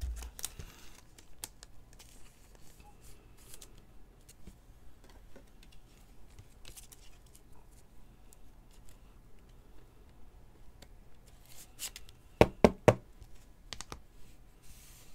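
Soft plastic rustling and scraping as a trading card is slid into a penny sleeve and clear plastic holder, with light handling clicks throughout. Three sharp, loud clicks follow in quick succession about twelve seconds in.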